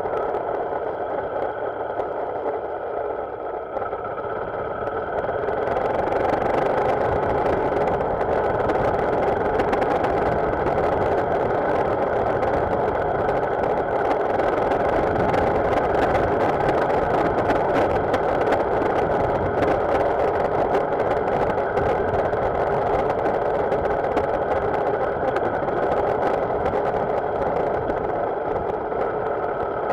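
Motorcycle engine running under way, with steady road and wind rush; the sound grows louder and brighter about six seconds in as the bike picks up speed.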